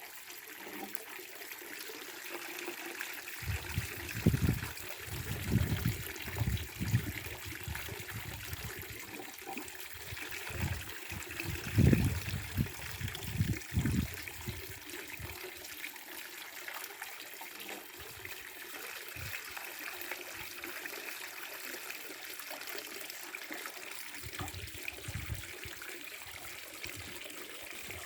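Spring water (yaksu) running steadily, a constant trickling splash. Bouts of low thumps break in a few seconds in, again near the middle, and once more near the end.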